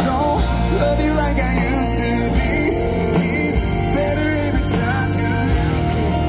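A live country-pop band playing a song: a male lead vocal over electric guitar and drums, at steady full volume, as heard from the audience in an arena.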